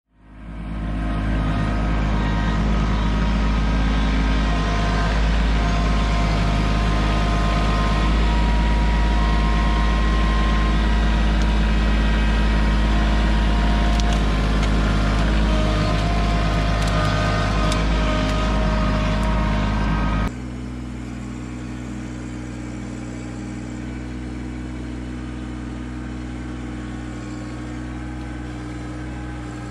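Kubota LX2610 compact tractor's three-cylinder diesel engine running steadily as the front-loader grapple works, with thinner higher tones over it. About twenty seconds in the sound cuts suddenly to a quieter steady engine run.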